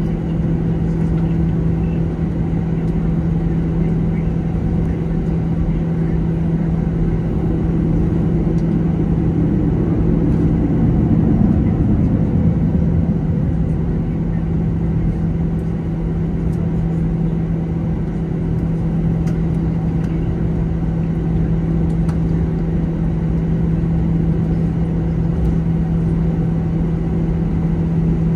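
Steady airliner cabin drone inside an Airbus A321 on the ground after landing, its engines at idle: a constant low hum over a broad rumble, swelling slightly about ten seconds in before settling back.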